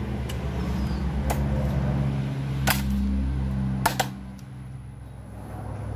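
Machete blows chopping into a stick of firewood: three sharp chops about a second and a half apart, the second and third the loudest. A steady low hum runs underneath and drops away after the third chop.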